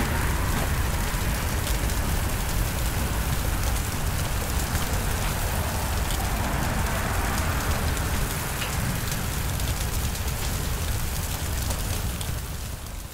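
Maple sap at a rolling boil in a steel evaporator pan: a steady, rain-like bubbling hiss with a low rumble underneath, fading out near the end.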